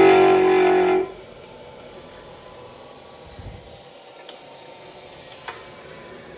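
Old Blue Point bench grinder running with a steady motor hum, cutting off suddenly about a second in; after that only a faint steady background hum with a couple of small ticks.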